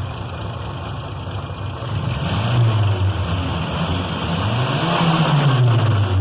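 Turbocharged Chevrolet Chevette engine blipped twice, the revs rising and falling each time. The engine is very loud and largely drowns out the turbo flutter on lift-off.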